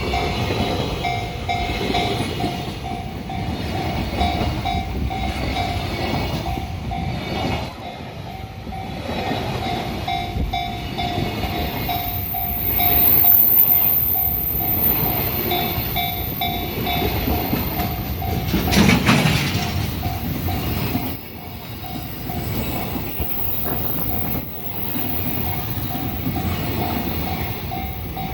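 A Japanese level-crossing alarm rings in an even, rapidly repeating electronic tone while a train rumbles past over the rails. A brief loud blast sounds a little past two-thirds of the way through.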